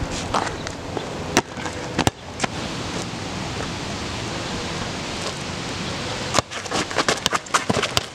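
Steady outdoor hiss with a few sharp knocks early on, then from about six seconds in a quick run of bounces as a small rubber mini basketball is dribbled hard on asphalt.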